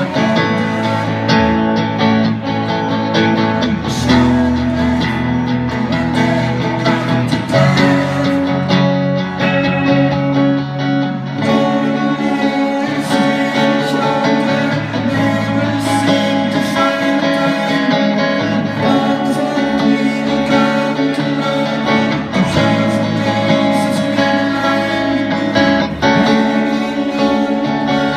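Guitar-led music playing steadily, plucked and strummed strings over a sustained low accompaniment.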